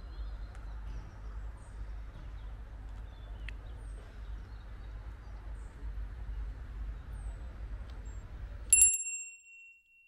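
Outdoor ambience: a steady low rumble with a few faint bird chirps. Near the end a single bright bell-like ding rings out and fades over about a second before the sound cuts to silence.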